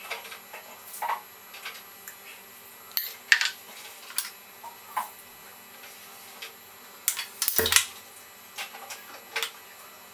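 Irregular light clicks and taps of a spoon and silicone spatula against a non-stick appe pan and batter bowl as dosa batter is spooned into the pan's cavities and spread. About three-quarters of the way through comes a short cluster of louder knocks with a low thump.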